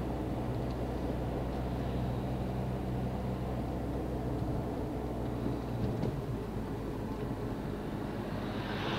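Car interior noise while driving: a steady engine hum with tyre and road noise. The low hum shifts about six seconds in, and a vehicle passes with a brief rushing swell near the end.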